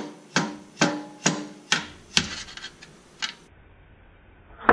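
A mallet strikes the end of a long screwdriver set against a transfer case output seal. There are six sharp, ringing blows about half a second apart, then a lighter one about a second later, as the leaking seal is driven out of a 1995 Jeep Wrangler YJ's transfer case.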